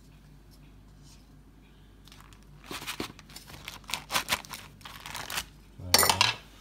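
Round pastry cutter pressed and worked by hand into a sheet of ready-rolled puff pastry on its paper backing, cutting out lids. From about three seconds in come a run of short rustles and crinkles, with a louder crinkle near the end.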